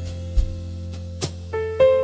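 Soft lofi jazz music: sustained piano or electric-piano chords over a deep bass note, with light percussion hits, and a new chord coming in near the end.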